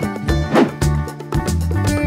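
Upbeat background music with a steady bass beat and plucked notes, with a short whoosh about half a second in.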